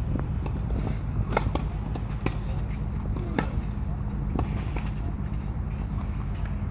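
Tennis rally on a clay court: a tennis ball struck by racquets and bouncing, a handful of sharp hits roughly a second apart, over a steady low rumble.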